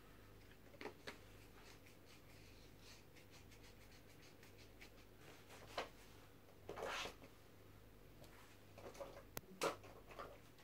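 Quiet handling noises from a person moving about on the floor with painting things: a few soft rustles and rubs, a longer scrape about seven seconds in, and a cluster near the end with two sharp clicks, over a faint low hum.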